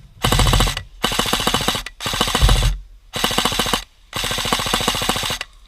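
Krytac Kriss Vector airsoft electric gun firing five short full-auto bursts, a rapid even rattle of shots in each, with the last burst the longest.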